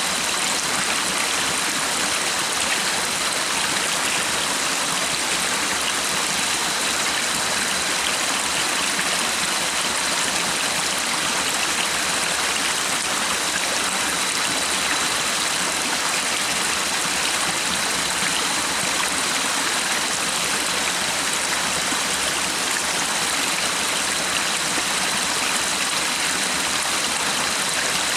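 A stream running, a steady, unbroken rush of flowing water. A faint, steady high tone sits above it.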